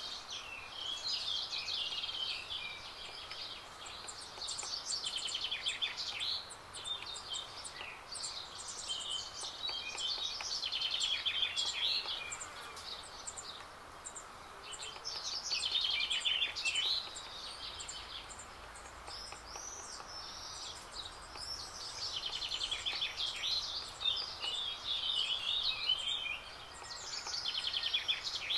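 A small songbird singing quick, high, warbling phrases of about two to three seconds each, repeated every few seconds, over faint outdoor background noise.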